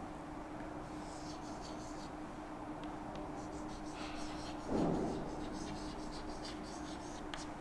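Chalk writing on a blackboard: runs of light scratching and tapping as letters are written, with a brief low sound a little past halfway. A faint steady hum runs underneath.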